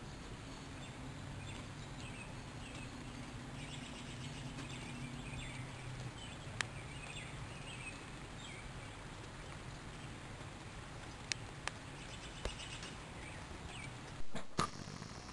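Steady rain falling outdoors, a soft even hiss with scattered drip ticks, under a low hum that fades out about six seconds in. A couple of louder knocks come near the end.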